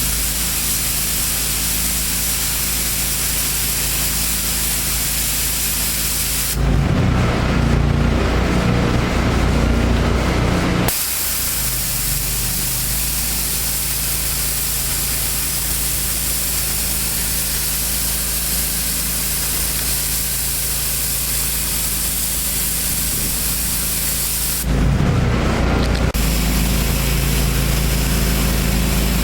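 Gas-engine pressure washer spraying: a steady hiss of the high-pressure water jet over the running engine. The spray stops twice, for about four seconds near the middle and briefly near the end, leaving the engine running louder on its own.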